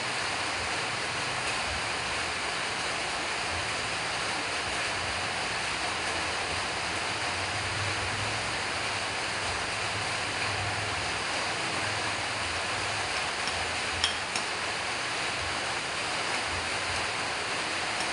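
Steady, even rushing noise with no change in level, and one light clink of a metal spoon against the plate about fourteen seconds in.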